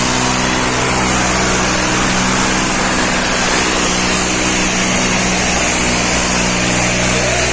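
Tractor diesel engine running steadily while hitched to a heavy harrow in a pull.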